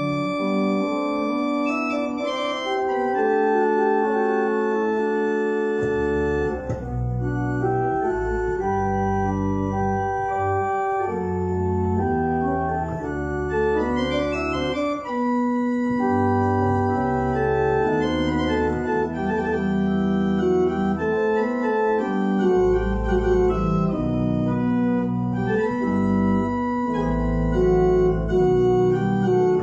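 Church organ playing a slow piece of sustained chords; deep pedal bass notes come in about six seconds in and drop out and return several times.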